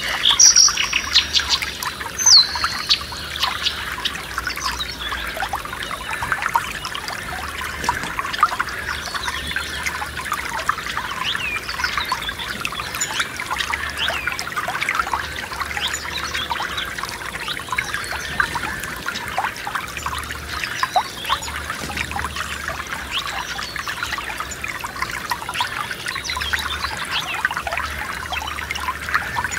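Small forest stream trickling and babbling steadily over stones, with birds calling; a few clear chirps stand out in the first couple of seconds.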